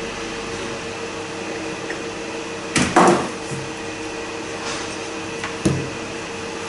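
Small metal parts handled on a steel workbench: a short clatter about three seconds in and a single knock near the end, over a steady mechanical hum.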